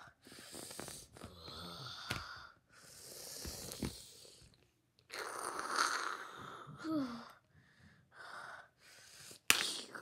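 A child's voice making breathy hissing and whooshing fight sound effects in short bursts, with a brief falling grunt partway through, for an action-figure battle. A sharp knock about half a second before the end is the loudest sound.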